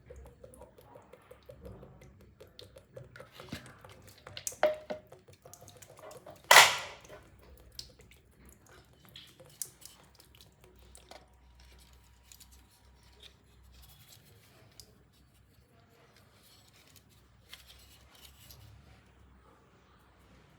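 Hand tools and small metal parts being handled during work on a pressure switch: scattered light clicks and knocks, with a metallic clink and then one sharp knock about six and a half seconds in.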